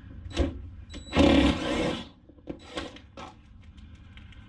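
Cordless impact driver zipping out a fuel-tank bolt: a short blip, then about a second of loud rapid hammering with a motor whine. A few light clicks and knocks follow as the bolt is handled.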